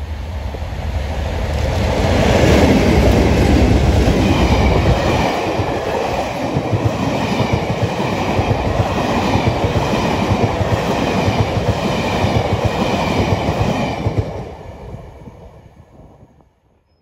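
Diesel-hauled passenger train passing at speed: the locomotive's engine and wheels build to a peak as it goes by, then a long rake of coaches follows with a regular clatter of wheels over the rail joints, fading away near the end.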